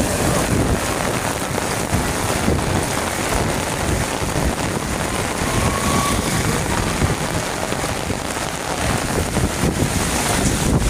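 Heavy rain pouring down on a flooded street, with wind buffeting the microphone in a steady low rumble.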